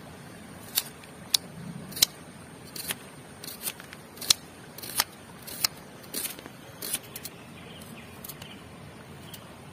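Kitchen knife slicing small red onions held in the hand: a run of about a dozen sharp, crisp snaps at an uneven pace, then only faint ticks in the last few seconds as the cutting moves on to garlic cloves.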